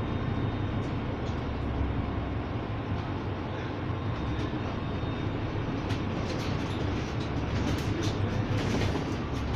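Interior noise of a Solaris Urbino 18 IV hybrid articulated bus under way: a steady low rumble from the drivetrain and road. From about six seconds in, short clicks and knocks join it.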